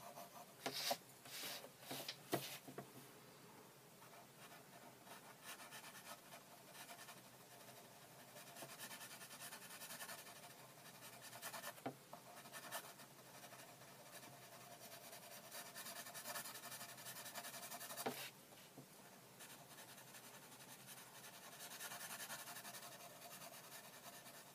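Graphite pencil scratching faintly across drawing paper in steady shading strokes as a background is darkened, with a few light clicks near the start.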